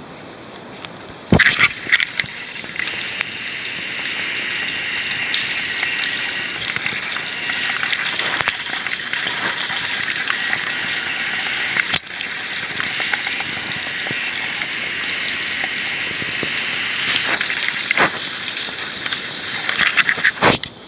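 Heavy rain pouring, a loud, steady hiss that starts right after a knock about a second in. Another knock comes near the end, and the rain sound drops away.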